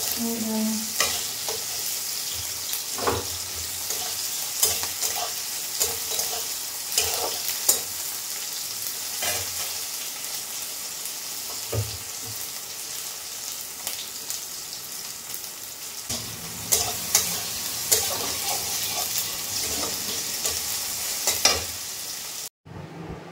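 Chowmein stir-frying in a hot pan: a steady sizzle with repeated scrapes and taps of a utensil against the pan as it is stirred. The sound cuts off suddenly near the end.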